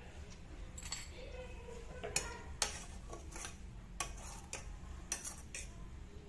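A spoon stirring tea in a stainless steel saucepan, clinking against the pan in an irregular series of sharp strikes. The two loudest strikes come a little past two seconds in, about half a second apart.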